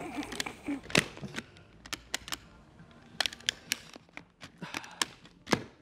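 Irregular plastic clicks and snaps from an Arai motorcycle helmet's visor and side-pivot mechanism as the visor is worked off and back on. The sharpest snaps come about a second in and near the end.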